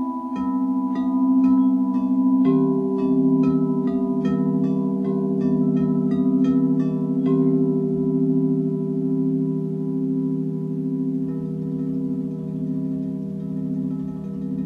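White frosted quartz crystal singing bowls struck lightly with a mallet, about two soft strokes a second for the first half. Their overlapping tones then ring on without new strikes, pulsing slowly in loudness as the pitches beat against each other.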